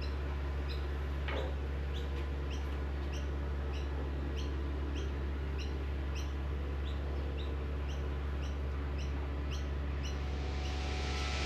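A small bird chirping over and over, a short rising chirp about every half second, over a steady low hum.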